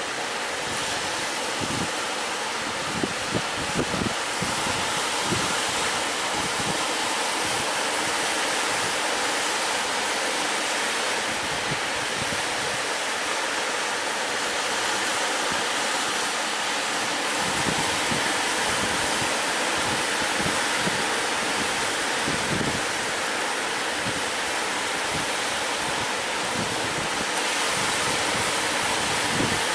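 Steady rush of wind and sea waves, with irregular low gusts of wind buffeting the microphone.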